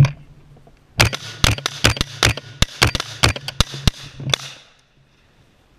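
Short-barrelled AR-15 rifle fired in a quick string of about a dozen shots, roughly four a second, each with a sharp crack and a trail of echo; the string stops abruptly about four seconds in.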